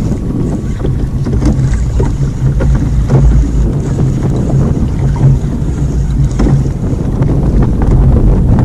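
Wind buffeting the microphone of a camera on a kayak at open sea: a loud, steady low rumble, with a few faint knocks.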